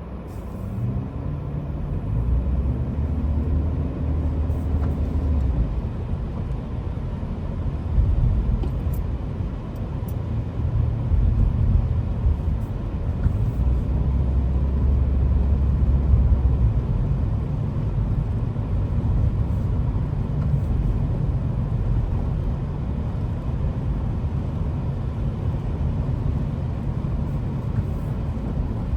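A car driving: a steady low rumble of engine and road noise, with the engine's pitch rising slightly in the first few seconds.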